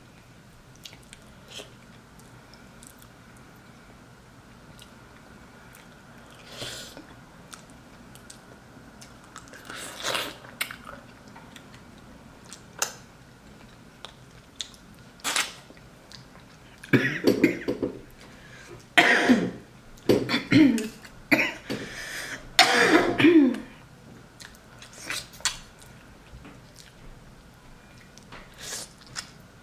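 A woman coughing and clearing her throat in a run of loud coughs about two-thirds of the way through, set off by the spicy seafood-boil seasoning. Small eating and mouth sounds come before it.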